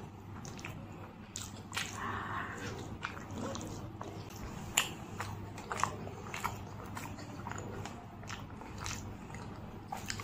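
Close-up mouth sounds of someone chewing a mouthful of puri dipped in ghugni: soft wet chewing with many small smacking clicks, the sharpest about five seconds in.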